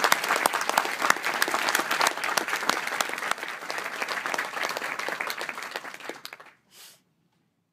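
Audience applauding, with one person clapping right beside the microphone. The applause tapers off about six and a half seconds in, and the sound then cuts to complete silence.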